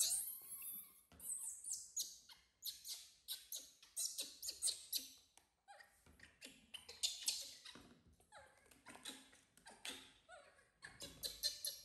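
Newborn baby monkey squealing: short, high-pitched cries, over and over with brief pauses.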